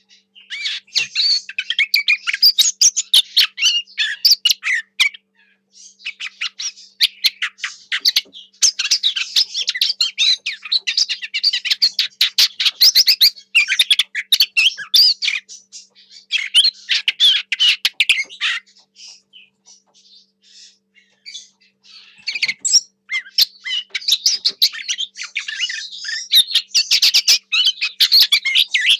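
Lesser whitethroat singing close up: long bouts of fast, high, scratchy warbling. The song breaks off briefly about five seconds in and runs quieter for a few seconds past the middle.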